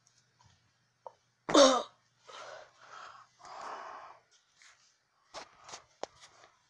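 A person's short, loud voiced outburst, then three breathy huffs, with a few light clicks near the end.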